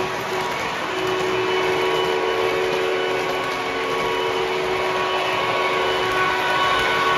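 O scale model trains running on three-rail track: a steady whine of locomotive motors with the rumble of wheels on the rails, a little louder from about a second in.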